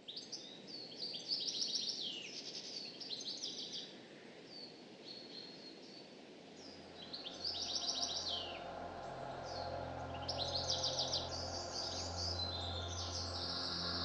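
Several songbirds chirping and trilling in repeated phrases, with soft, sustained background music fading in about halfway through.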